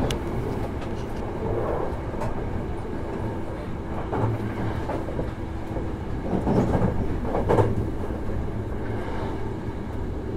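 Hankyu 1000 series electric commuter train running at speed, heard from inside a passenger car: a steady rumble of wheels on rail with a faint steady tone. Louder bursts of wheel clatter come about four, six and a half and seven and a half seconds in.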